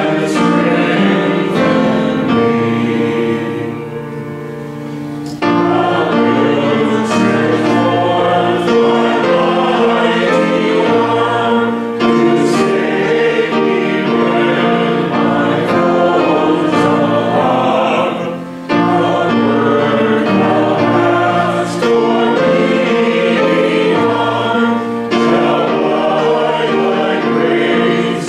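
Church congregation singing a hymn together. There are short breaks between lines about four seconds in and again at about eighteen seconds.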